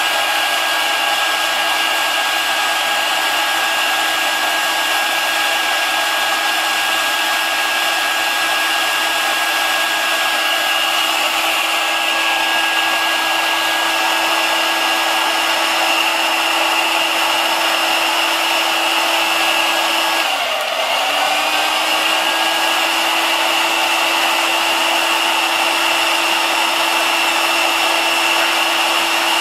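Paint-stripper heat gun, fitted with an old soldering iron's barrel as a narrow nozzle, running steadily as a hot air desoldering tool: the fan gives a steady hum and whine under the rush of air. About twenty seconds in the pitch briefly dips and then recovers.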